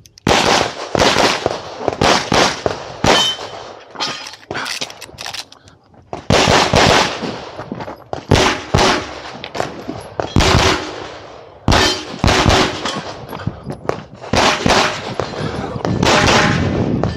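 Rapid 9mm pistol shots from a CZ Shadow 2 firing 147-grain ammunition, in quick pairs and short strings with pauses of about a second between strings.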